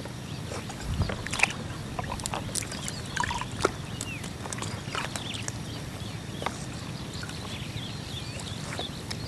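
Water sloshing and splashing around an angler floating on an inner tube in a reservoir, over a steady low rumble, with a few short chirps.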